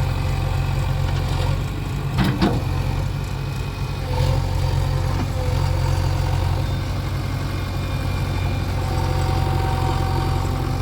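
Heavy diesel engine running steadily at low revs, with a brief clatter of knocks about two seconds in. The engine grows slightly louder about four seconds in.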